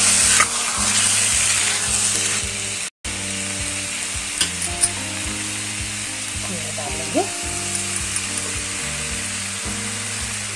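Grated carrot halwa sizzling in ghee in a steel pan while a spoon stirs it, with a few sharp clicks of the spoon against the pan about four and a half seconds in. The sizzle is louder for the first two seconds or so and breaks off for an instant about three seconds in.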